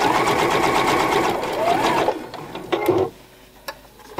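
Domestic sewing machine stitching a zipper with the zipper foot, running fast and evenly for about two seconds, then stopping; a few light clicks follow.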